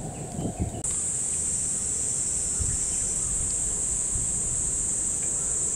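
Cicadas droning in a steady, even, high-pitched hiss that comes in suddenly louder about a second in, over a low rumble of wind on the microphone.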